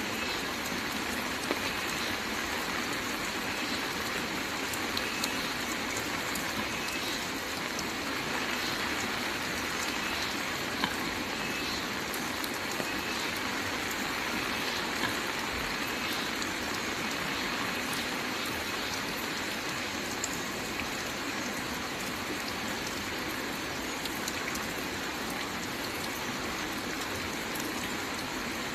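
Steady rain falling, an even hiss with scattered sharper ticks of individual drops striking close by.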